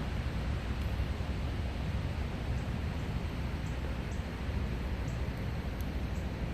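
Steady low rumble and hiss of a car cabin with the car switched on, with a few faint, scattered ticks.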